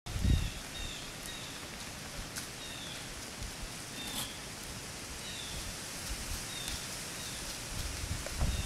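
Outdoor ambience: a steady hiss, with a bird repeating a short, high, falling call about once a second. A low rumble comes at the start and again near the end.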